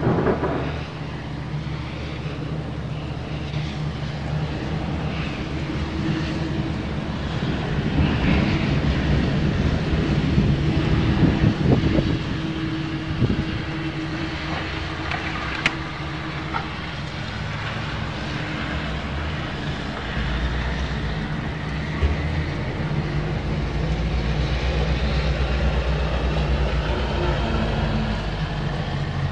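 Night street ambience on a 1985 cassette field recording: a steady low engine hum, with vehicle noise swelling about 8 to 12 seconds in. A single sharp click comes about 16 seconds in, and the low hum changes character about 20 seconds in.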